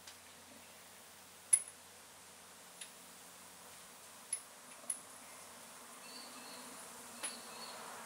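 A few sharp, separate metallic clinks of hand tools and a drain plug being handled while refitting a differential's drain plug, the loudest about a second and a half in, the rest fainter and spaced out.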